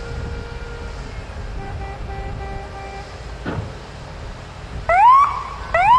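Steady low rumble at a construction site, then two loud rising siren whoops near the end, each climbing in pitch and then holding.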